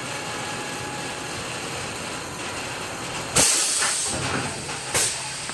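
Steady mechanical background noise, broken about three and a half seconds in by a sudden loud hiss that fades over about a second, and a second short hiss near the end.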